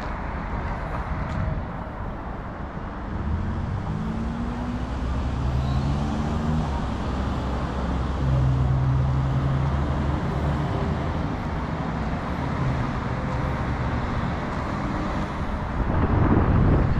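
Road traffic on a city street: a motor vehicle's engine running with a steady low note over the general traffic noise, with wind buffeting the microphone near the end.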